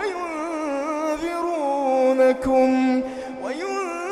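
A man's voice in Quranic recitation (tajwid), holding and ornamenting long melodic notes with a wavering pitch. About three seconds in there is a brief break, then the voice glides upward into the next phrase.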